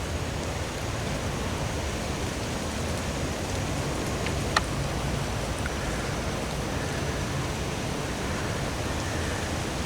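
Rain and wind-shaken water pouring down through a honey locust tree's leaves: a steady hiss, with one sharp tick about halfway through.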